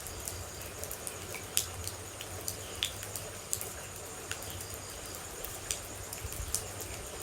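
Water droplets falling irregularly in sharp single drips over a steady high insect trill, like crickets, with a low rumble beneath.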